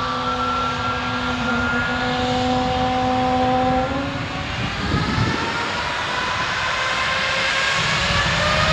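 Airbus A321neo's geared turbofan jet engines at takeoff thrust: a steady jet roar with several whining tones that slowly rise in pitch.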